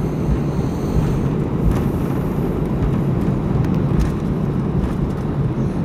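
Cabin noise in an Airbus A319 taxiing just after landing: a steady low rumble of the jet engines at low power and the wheels rolling on the taxiway, with a few soft bumps.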